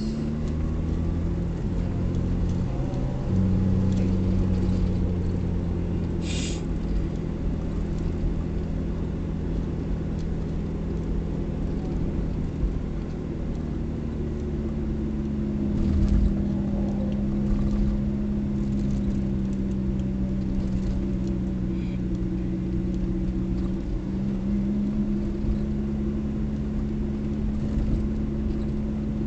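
Car engine and road noise heard from inside the cabin while driving slowly: a steady low hum whose pitch shifts a few times. A brief high-pitched blip sounds about six seconds in.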